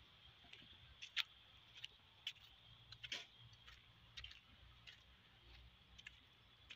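Near silence: faint outdoor background with a steady high hiss and a scattering of small irregular clicks, the clearest about a second in and about three seconds in.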